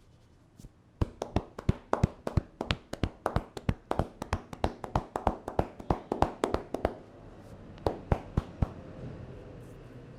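A barber's hands tapping and slapping rapidly on the head during a traditional Indian head massage, about five sharp strikes a second for several seconds, then two single strikes near the end.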